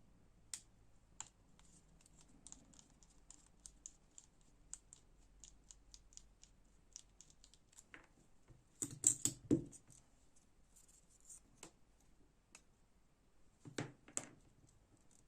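Small metal clicks and scratches from the parts of an Enlan M011 folding knife and a Torx bit driver being handled during disassembly. There is a quick cluster of louder knocks about nine seconds in and another near the end.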